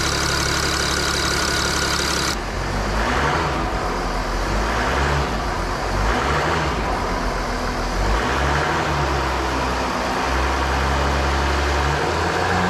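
Mercedes OM642 V6 turbodiesel engine idling, then revved up and down several times. The exhaust back pressure is excessive, which the mechanic suspects comes from a blockage in the exhaust.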